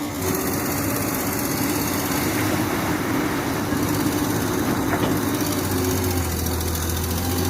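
Excavator's diesel engine running steadily, with a deeper hum coming in about six seconds in.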